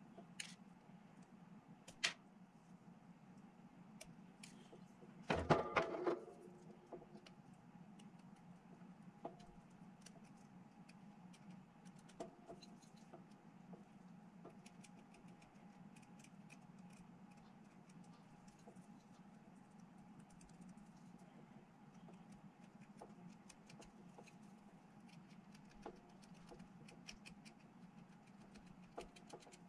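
Faint handling of small plastic miniature parts being pressed and fitted together by hand: a few light clicks and ticks, with a short clatter about five seconds in, over a steady low hum.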